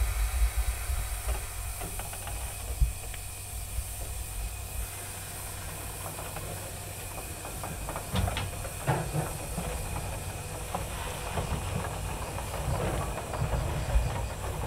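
C58 steam locomotive moving slowly with its cylinder drain cocks open, letting out a steady hiss of steam over a low rumble and a few metallic clanks.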